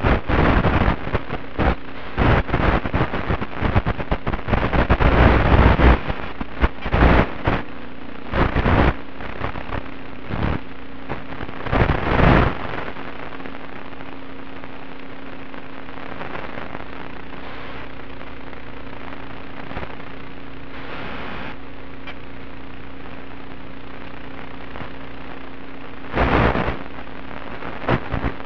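Static hiss from an analog FPV video receiver's audio channel, recorded by the goggles' DVR, with a faint steady hum. Loud bursts of crackling break in through the first dozen seconds and again briefly near the end, where the link is being disturbed by interference.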